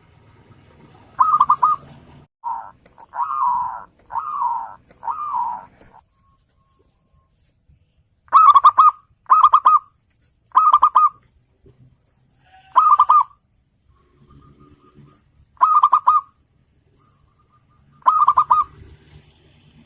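Zebra dove (perkutut) cooing. A run of falling coos is followed by short, rapidly stuttering coo phrases repeated every one to three seconds.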